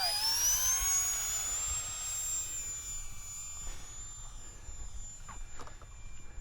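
The 30 mm electric ducted fan of an E-flite UMX F-86 Sabre spooling up: a whine that rises in pitch for about two seconds, then holds steady.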